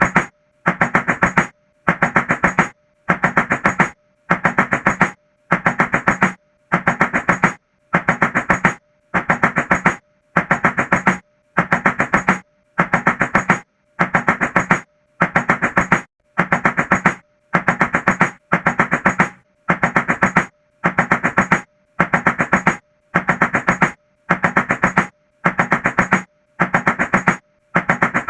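Rapid knocking on a door in bursts of many quick strikes, each burst just under a second long. The bursts repeat with short gaps about every second and a quarter, mechanically even like a loop.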